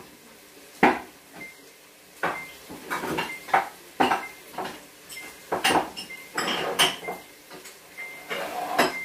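Rummaging through a kitchen wall cupboard: an irregular run of clinks and knocks as items on the shelf are pushed about and picked up.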